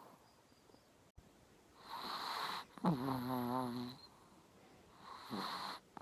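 Overweight Chihuahua snoring in its sleep. A rough snoring breath comes about two seconds in and turns into a pitched, wavering snore for about a second. A second, shorter rough breath follows near the end.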